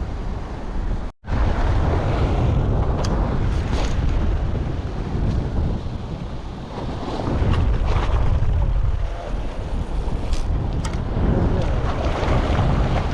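Wind buffeting the microphone in loud, gusty rumbles, over the wash of surf.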